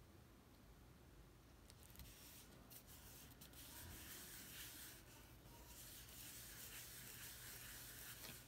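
Faint rubbing and scraping on paper card stock, in patches from about two seconds in, with a few small ticks.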